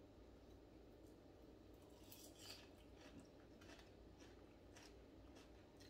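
Near silence with faint, soft eating sounds: a person chewing and picking at fried fish with her fingers, giving a few small clicks, slightly louder about two seconds in.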